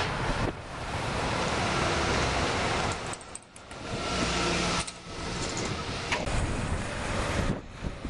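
Road traffic noise on a city street, with vehicles including a double-decker bus passing close by. The noise drops away briefly twice.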